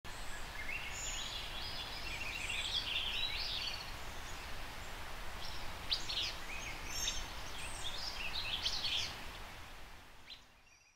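Outdoor field ambience: small birds chirping and singing in short repeated phrases over a steady low rush of wind, fading out near the end.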